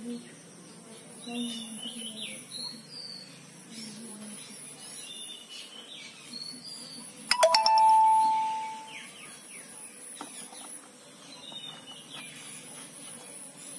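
Outdoor background of birds chirping and a high insect trill in short repeated pulses. About seven seconds in, a single loud bell-like ding starts with a few sharp clicks, then rings and fades over a second or two.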